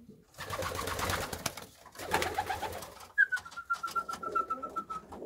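Racing pigeons in a wooden loft: two short bursts of rustling and flapping in the first half, then a thin, high, steady squeak held for about two seconds that drops slightly at its start.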